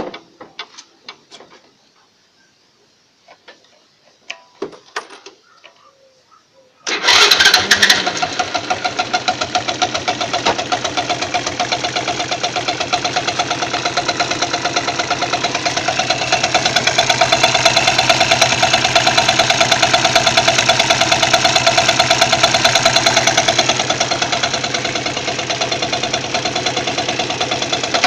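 A few scattered clicks, then an engine starts about seven seconds in and keeps running with a fast, even knocking, which the owner puts down to a worn crankshaft bearing.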